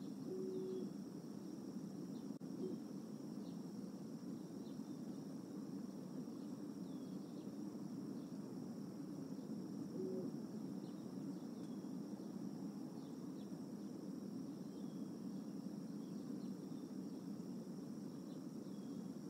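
Outdoor ambience at a bald eagle nest cam microphone: a steady high insect trill over a low, even hum, with scattered faint short chirps.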